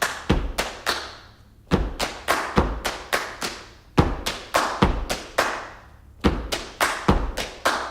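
Stomp-and-clap percussion from a song's recorded intro: deep foot-stomp thuds and sharp hand claps hit about twice a second in a loose beat, with no melody yet.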